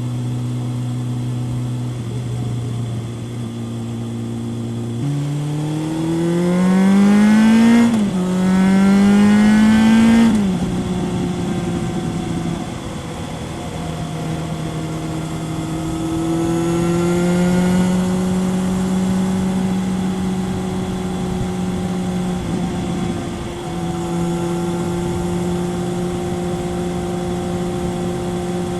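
Kawasaki ZRX 1100 inline-four through a Yoshimura exhaust, heard riding along. About five seconds in it accelerates hard, the pitch climbing steeply through one gear, dropping at an upshift and climbing again. It then eases off and settles back to a steady cruise.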